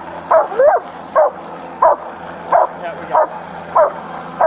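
Police K9 barking over and over in an even rhythm, about eight barks in four and a half seconds.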